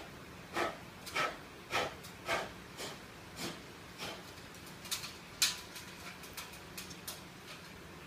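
Ceiling fan running with a faint low hum while hands work at its motor housing: a run of short scraping sounds about twice a second, then a scatter of lighter clicks.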